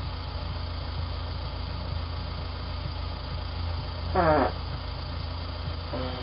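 Steady low hum and hiss picked up by a Ring doorbell camera's microphone. About four seconds in comes one short fart, rising in pitch, followed by a briefer low tone near the end.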